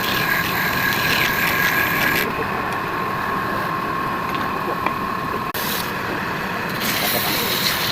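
Woodturning lathe running with a steady motor hum, with a hissing that comes and goes as the turning tool works the wood.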